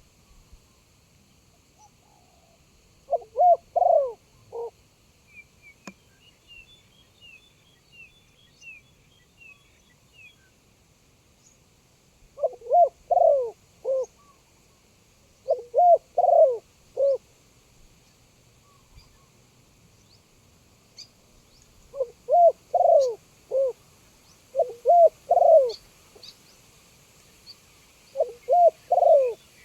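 Spotted dove cooing: about six phrases of several low, rolling coos, coming every few seconds. A smaller bird gives a quick run of high chirps about a quarter of the way in.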